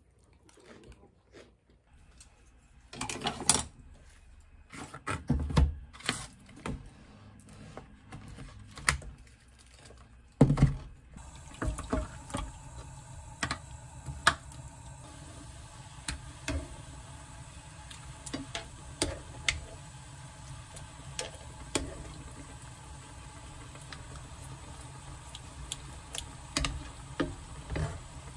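Marinated LA galbi (beef short ribs) cooking in its marinade in a frying pan: a steady hiss, with tongs clicking and tapping against the pan. Before that, about the first third holds scattered thumps and handling noises.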